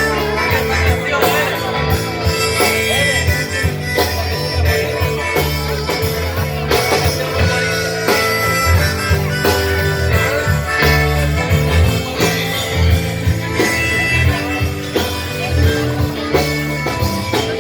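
Loud music with a steady beat and a pulsing bass line.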